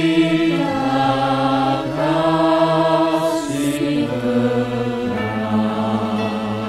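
Small mixed choir of men's and women's voices singing slow, sustained chords. The notes are held and shift to a new chord every second or two, and the singing grows slightly softer toward the end.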